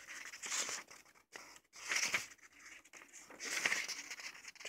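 Paperback book pages being flipped: three papery swishes with light rustling between them.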